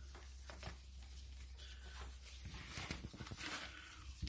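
Faint rustling of newspaper bedding as two-week-old puppies shuffle about, over a low steady hum.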